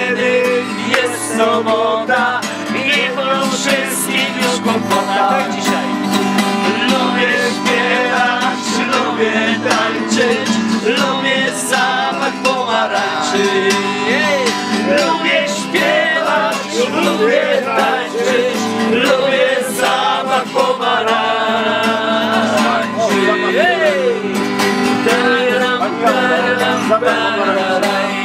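A song sung with guitar accompaniment.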